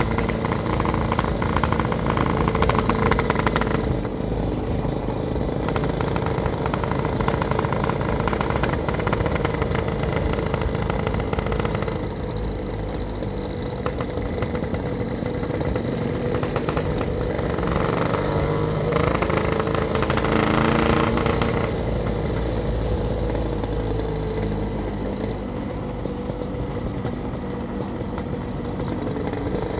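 Yamaha RX-King's 135 cc two-stroke single-cylinder engine running on the move, its note rising and falling a few times as the throttle changes.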